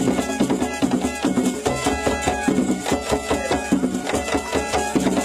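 Traditional Gouro Zaouli dance music: fast, dense drumming and struck percussion over a few held tones.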